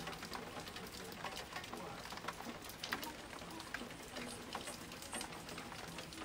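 Rain falling steadily, with scattered individual raindrops ticking irregularly over the hiss.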